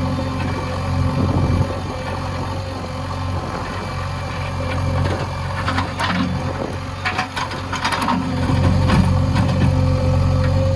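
Diesel engine of a JCB backhoe loader running steadily, with a run of sharp metallic knocks and clatter in the middle stretch.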